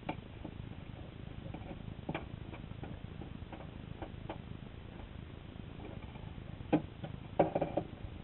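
Underwater sound picked up by a GoPro in its waterproof housing: a steady low rumble with scattered, irregular small clicks and ticks. A sharp click comes near the end, followed by a short cluster of louder clicks.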